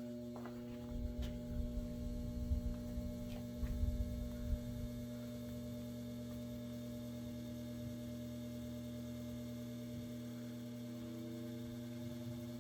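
Westinghouse AT12-1 table fan's two-speed shaded-pole motor running on low speed with a steady mains hum and buzz, quite buzzy, which the owner puts down to age and likely worn, long-unoiled bearings. A low rumble of moving air comes and goes in the first few seconds.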